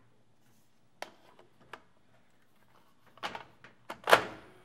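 Scattered plastic clicks and knocks as an 8-track tape cartridge is handled and pushed into the bare mechanism of a Soundesign Super 8 8-track player. The loudest sound is a short scraping clunk about four seconds in as the cartridge goes home.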